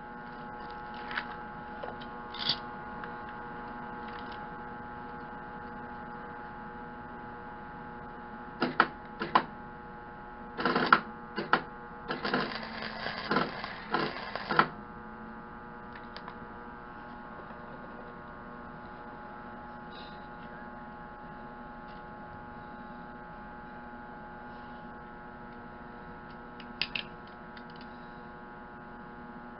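A semi-automatic wire-feed welder sounds over a steady electrical hum. It makes several short arc strikes, then about twelve seconds in a crackling weld lasting about two and a half seconds, and a brief strike near the end.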